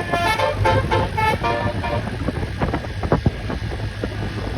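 A bus's basuri telolet air horn plays a quick melody of short, changing notes, then stops about two seconds in. After it there is a low rumble with a few sharp knocks.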